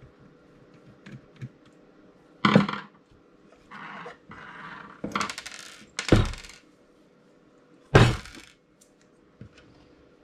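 Handling noise on a wooden workbench: small clicks, then three heavy thunks of metal grinder parts and tools being set down, about two and a half, six and eight seconds in, with rustling and a brief rattle between them.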